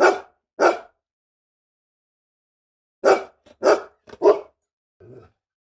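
A dog barking: two sharp barks a little over half a second apart, then after a pause of about two seconds three more barks in quick succession, followed by a quieter short sound.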